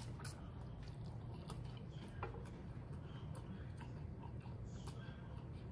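A person chewing a mouthful of noodles: faint wet chewing with scattered small mouth clicks, over a steady low hum.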